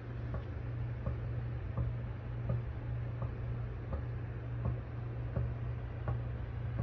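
Wall-mounted air conditioner making a strange noise: regular ticking clicks about once every 0.7 s over a steady low hum. A repairman traces it to the drain hose and says fitting a part onto the hose will cure it.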